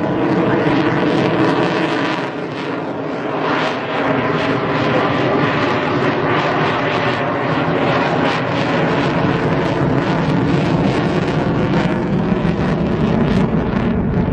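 Chengdu J-10C fighter's single jet engine running at high power as the jet manoeuvres, a loud, steady jet noise with a rough, crackling edge that eases slightly about two seconds in.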